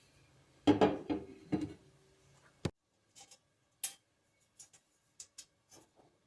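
Clicks and knocks of small hard parts and tools being handled: a few louder knocks with a brief ring about a second in, a sharp click, then light scattered ticks.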